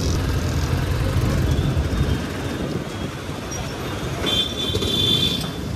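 Hero Xpulse 200 4V's single-cylinder engine running as the motorcycle rides slowly through city traffic, with road and wind noise. A brief high-pitched tone sounds for about a second, a little past the middle.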